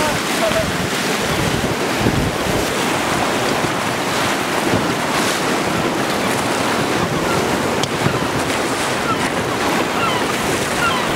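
River rapids rushing around a raft: a loud, steady rush of churning whitewater.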